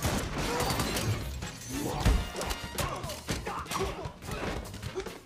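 Fight-scene soundtrack: music under a brawl, with blows landing and glass shattering.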